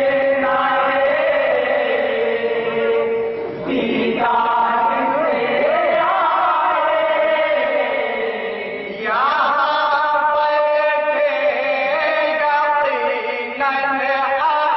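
A group of young men chanting a naat together in unison, unaccompanied voices holding long drawn-out notes, with brief pauses for breath about four and nine seconds in.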